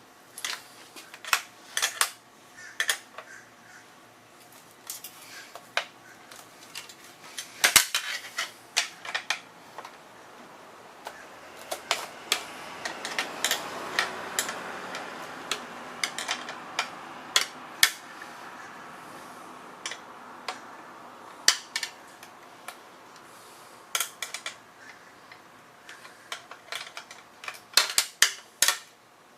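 Metal hand tools and bolted parts clinking and knocking in irregular sharp taps, with a softer rustling swell in the middle, as the rear fender and license plate bracket of a 1981 Honda CM400A motorcycle are worked loose.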